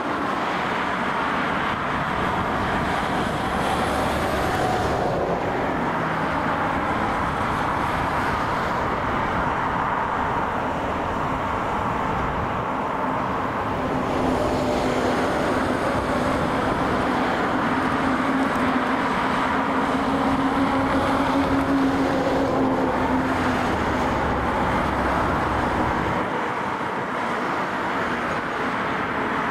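Jet engines of a Boeing 737 airliner on final approach, landing and rolling out, a steady rush. After touchdown, about halfway through, the noise grows louder with a steady hum for several seconds, then drops a few seconds before the end.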